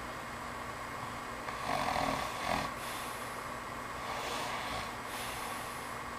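A man snoring in his sleep: one loud snore on the in-breath about a second and a half in, lasting about a second, then a softer, breathy out-breath about four seconds in, over a steady background hiss.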